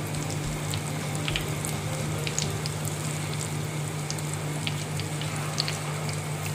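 Pakora batter deep-frying in hot oil: a steady sizzle with scattered crackling pops as spoonfuls of batter are dropped in.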